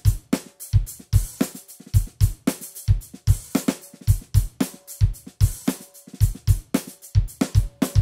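Sampled acoustic drum kit from the DS Drum RCS Essentials library, 'Ring The Ring' preset, playing a steady groove of kick, snare and hi-hat. A pitched ring holds on after some of the hits.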